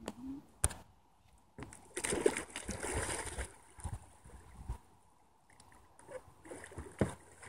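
A kayak capsizing in shallow water: a splash about two seconds in, followed by a second or so of churning water. Then lighter sloshing as the upturned boat is handled, with a few sharp knocks.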